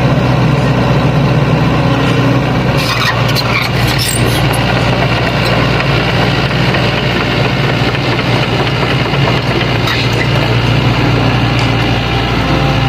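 Sany hydraulic excavator's diesel engine running steadily under working load, with a run of sharp clattering knocks and scrapes about three seconds in and a few more near the end, from the machine handling stones.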